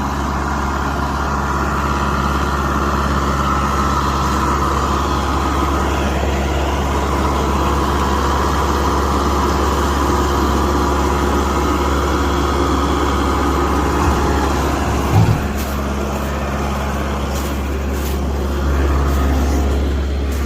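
A large engine idling steadily, with a brief knock about fifteen seconds in.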